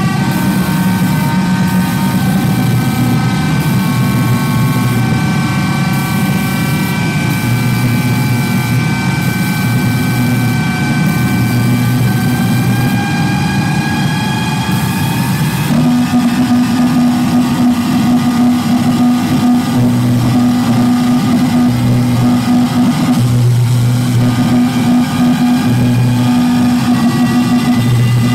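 Loud live electronic noise music from effects pedals: several held high drone tones, some slowly gliding upward, over a low hum that switches on and off. About halfway through it shifts suddenly to a steady low drone with a deeper bass tone cutting in and out.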